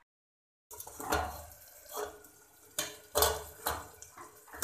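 A metal ladle and the stainless steel lid knocking and clinking against a steel cooking pot, about six knocks roughly a second apart, starting about a second in.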